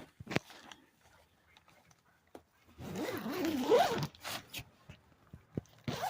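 Tent door zipper being pulled along in one stroke of about a second, about three seconds in.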